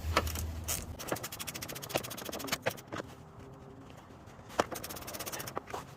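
Socket ratchet clicking in quick runs while a door hinge bolt is backed out, with a few separate metallic knocks between the runs.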